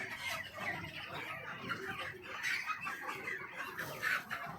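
A flock of chickens clucking and chirping together, many short calls overlapping into a steady din.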